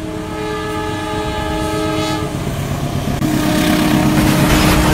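Locomotive horn blowing a long multi-tone chord for about two seconds, then sounding again from about three seconds in, over the rumble of an approaching train that grows steadily louder.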